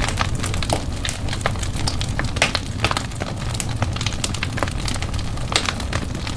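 Wood fire in a fireplace crackling, with many irregular sharp pops over a steady low rumble of the flames.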